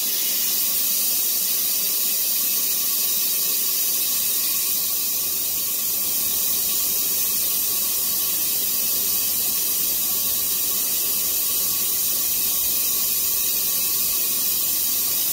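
Air-powered vacuum pump on a homemade oil extractor hissing steadily as compressed air rushes through it. It is drawing vacuum to suck the overfilled oil out of a pressure washer engine's crankcase.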